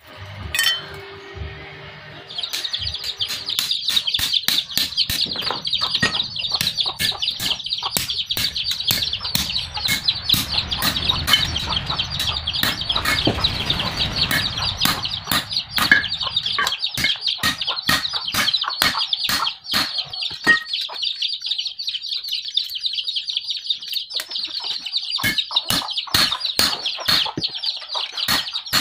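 Hand hammer striking a steel bar on an improvised anvil, sharp metallic blows about two to three a second, starting about two seconds in. The start holds a short metallic ring. A steady high-pitched chirring runs behind the blows throughout.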